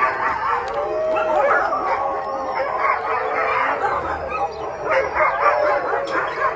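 A pack of Siberian huskies howling, yipping and barking together, many voices overlapping without a break: hungry dogs clamouring for their dinner.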